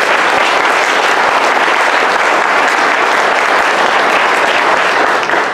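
Audience applauding a speaker's introduction: a steady round of clapping that begins to die down near the end.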